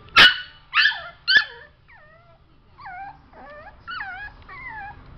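Yorkshire terrier puppy, about six weeks old, giving three sharp high yips in quick succession, then a run of about five quieter whining calls that waver up and down in pitch.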